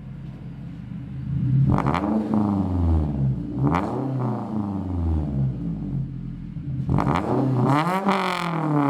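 Scion tC's four-cylinder engine idling through a newly fitted Magnaflow muffler, then revved and let back down several times, the rev near the end the longest and highest.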